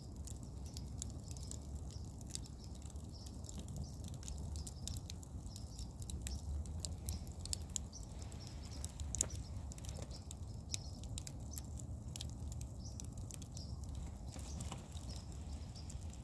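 Wood fire burning in a wire-mesh cylinder, crackling and popping irregularly and often over a steady low rumble of the flames.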